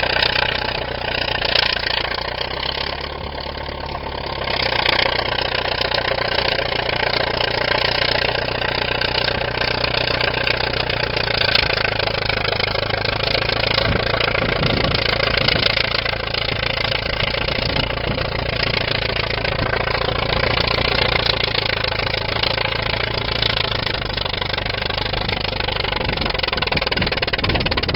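Engine of a 1931 Allis-Chalmers crawler bulldozer running steadily at a low idle. It dips slightly and picks up again about four seconds in.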